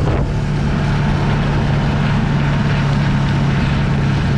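A vehicle engine running steadily with a constant low hum, under heavy rushing wind and road noise as it drives along.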